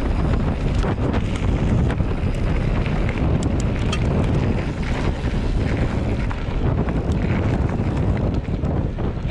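Wind buffeting the microphone: a steady, loud rumble that runs on without a break.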